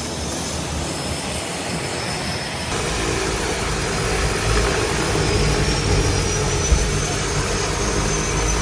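Steady drone of a propeller aircraft's engines, such as a seaplane's, running at constant power with a faint high whine; the sound changes abruptly about a third of the way through.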